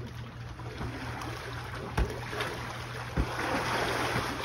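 Pool water splashing as players volley a beach ball, with sharp slaps of a hand on the ball about two seconds in and again about a second later. A louder splash swells near the end as a player goes into the water. A steady low hum runs underneath.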